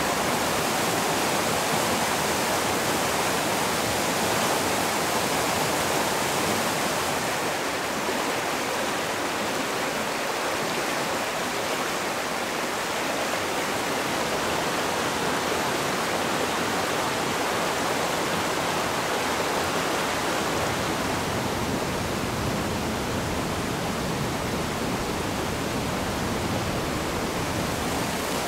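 Water rushing over rocks in a stream cascade, a steady hiss that dulls slightly about eight seconds in.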